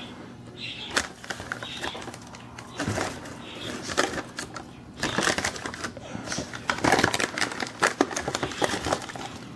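Dry leaf litter in a terrarium crackling and rustling, with scattered sharp clicks that come thickest in the second half.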